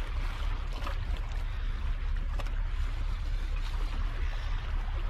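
Small harbour waves washing and splashing against a rock ledge, under a steady low rumble of wind on the microphone.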